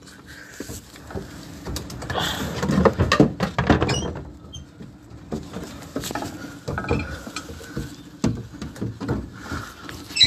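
Handling noise from a phone being jostled and moved about close to its microphone: irregular rustling, bumps and knocks, busiest about two to four seconds in.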